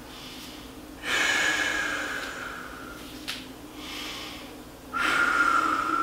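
A person breathing deeply: two long, loud exhalations, one about a second in and one near the end, with a quieter inhale between them.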